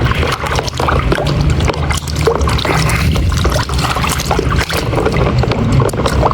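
Water splashing and sloshing in a bucket as a small plastic toy is washed by hand, a continuous irregular patter of splashes.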